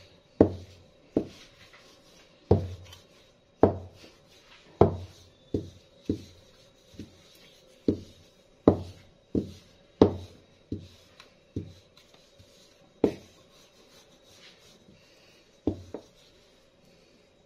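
A wooden rolling pin knocking and bumping against a hard kitchen slab while tortilla dough is rolled out thin. The knocks are sharp and irregular, roughly one a second, with a few quick pairs and a longer gap near the end.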